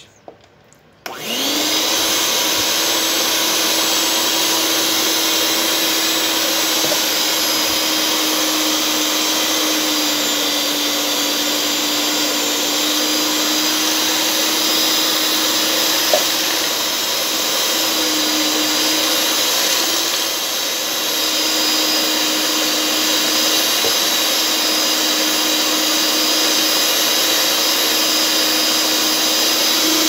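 Mondial Prática stand mixer switched on about a second in, its electric motor then running steadily with a constant whine as the beaters mix cake batter in the bowl.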